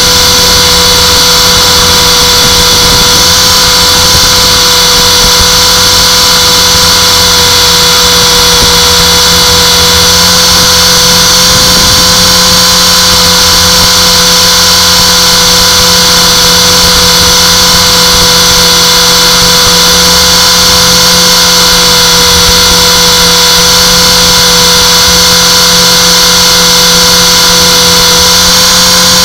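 Align T-Rex 450 electric RC helicopter in flight: its brushless motor, gears and rotor give a loud, steady high whine over a lower hum, the pitch wavering only slightly.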